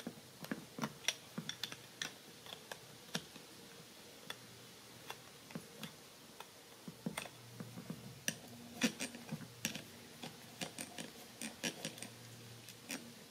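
A 14 mm open-end wrench loosening the nut on a spinning reel's rotor shaft: irregular small metallic clicks and ticks as the wrench is repositioned on the nut and the reel's parts knock, with a louder cluster of clicks about two-thirds of the way through.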